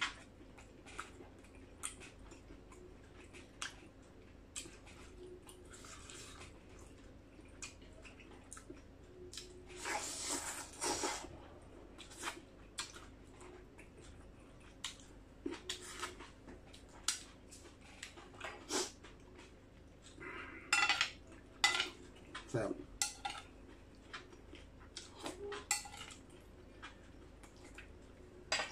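Eating with the fingers from a large bowl: irregular small clicks and taps of hands and food against the bowl, with chewing between them and two louder rustling, crunchy stretches about a third of the way in and again about two thirds in.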